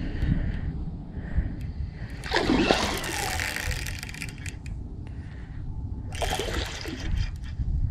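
Water splashing in two bursts, the first about two seconds in and a shorter one near the end, as a large hooked northern pike thrashes at the surface during the fight, over low wind rumble on the microphone.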